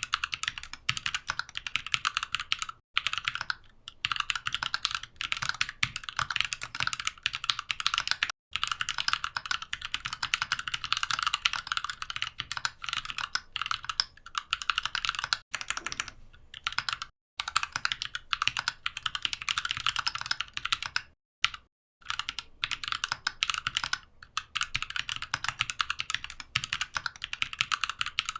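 Mechanical keyboard being typed on fast, a dense run of key clicks broken by a few brief pauses.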